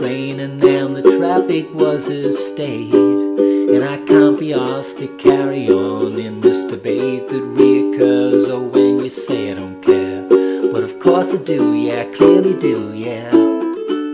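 Ukulele strummed steadily through an instrumental passage, moving through F#, G and D chords, with a lower bass part underneath that drops out shortly before the end.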